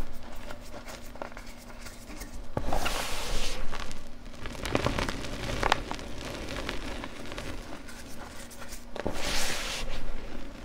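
Hands crushing and crumbling clumps of gym chalk: soft crunches and crackles, with two longer hissing spells as powder pours from the hands, about three seconds in and again near the end.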